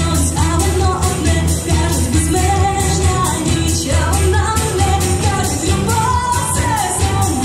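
Recorded song with singing over a steady dance beat and heavy bass.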